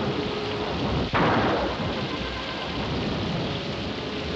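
A thunderclap cracks about a second in and rumbles away over steady, heavy rain.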